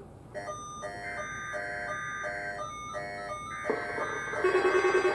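Weather alert radios going off for a weekly test of the alarm. A rapid, tune-like pattern of short electronic beeps repeats at several pitches, and near the end a wavering siren-like alarm joins in and gets louder.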